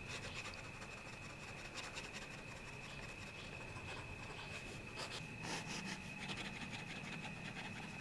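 Fine-tip ink pen scratching on sketchbook paper in quick, repeated hatching strokes, faint, with a thin steady high tone in the background.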